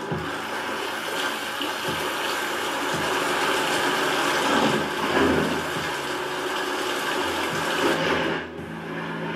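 Sony HT-S40R 5.1-channel soundbar system playing the sound effects of a promotional demo: a steady rushing noise with a few faint low swells, dipping briefly near the end.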